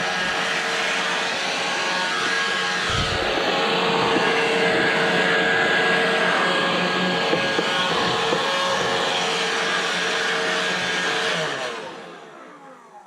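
An electric blower motor running steadily at full speed, used to clean brake dust out of the truck's brake assembly. It is switched off near the end and winds down, its pitch falling.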